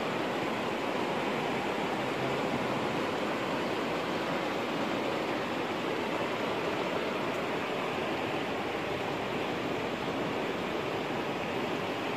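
Steady rushing of flowing water, an even hiss that holds without change.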